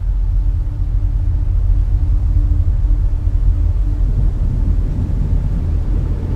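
Deep, steady sound-design rumble with a faint hum held above it, swelling up at the start.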